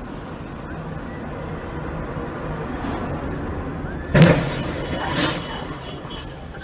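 Car driving with steady engine and road noise, then a loud bang about four seconds in and a second, smaller bang about a second later: a collision.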